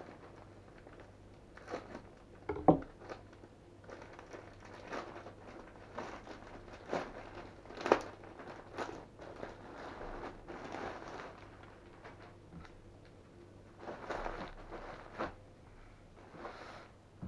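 Plastic courier mailer bag rustling and crinkling as it is handled and pulled open, in irregular bursts with two sharper crackles about 3 and 8 seconds in.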